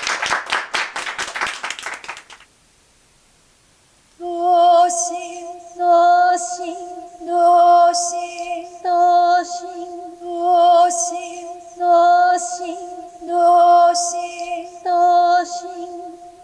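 A small group clapping, which stops about two seconds in. After a short silence, music starts: a held note under a phrase that swells and fades about every second and a half.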